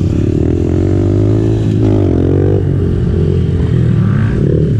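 Pit bike engine running as it is ridden, heard from on the bike, with the revs climbing and dropping back about two seconds in.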